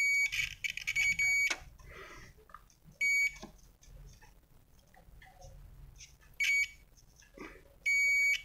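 UNI-T digital multimeter's continuity buzzer beeping as the probes touch the printed traces of a keyboard membrane: a steady high beep that sounds only while the probed trace is connected. It comes as a broken run of short beeps over the first second and a half, then single short beeps about three, six and a half and eight seconds in.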